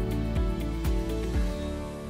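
Background music with a regular beat and sustained notes; the beats stop about a second and a half in and the music begins to fade out.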